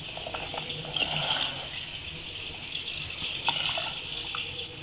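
A steady stream of water poured into a metal pot of boiling black glutinous rice, splashing into the liquid.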